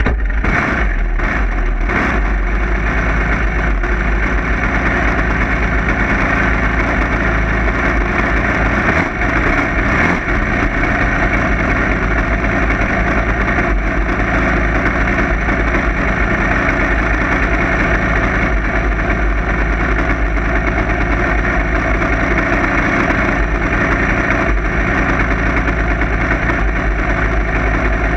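Jr. dragster's single-cylinder engine idling steadily, heard close up from the car itself.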